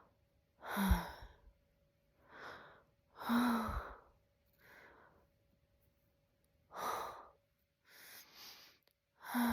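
A woman's series of breathy gasps and sighs, about seven, two of them starting with a short voiced catch: the build-up to a sneeze that does not come while her nose is tickled with a feather.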